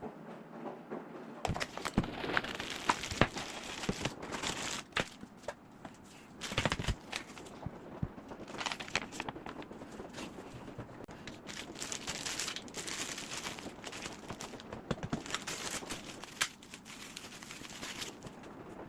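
Packaging crinkling and rustling, with many irregular sharp clicks and knocks of handling, starting about a second and a half in.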